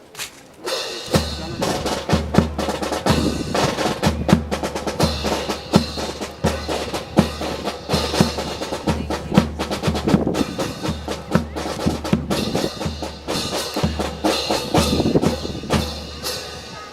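Marching drum cadence: a bass drum beating steadily about twice a second under rapid snare drum strikes and rolls.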